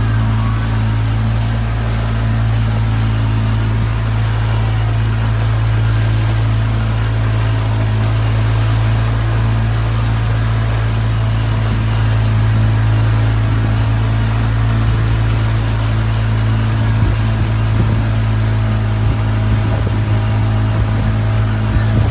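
Motorboat engine running steadily at cruising speed, a constant low hum.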